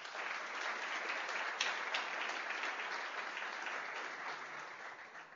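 Audience applauding, a dense run of clapping that tails off near the end.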